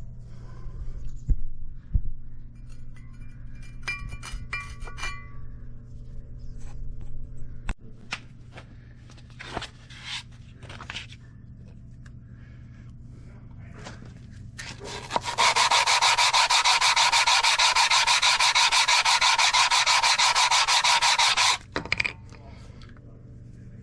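Scattered light clinks and knocks of tools, then about six seconds of a loud, steady abrasive scouring from a power tool, with a fast fine flutter in it, that cuts off suddenly.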